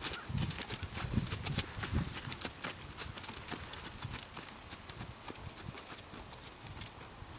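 Horse's hooves thudding on a soft sand arena floor under a rider: a dull hoofbeat roughly every half to one second, fainter after about three seconds as the horse moves away, with many light clicks over it.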